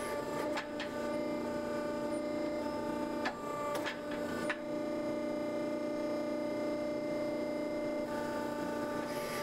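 Hydraulic forging press running with a steady hum as its top tool presses into a block of hot steel. A few short sharp clicks sound in the first half.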